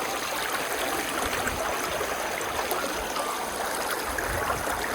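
A shallow, rocky brook flowing over stones: a steady rush of running water.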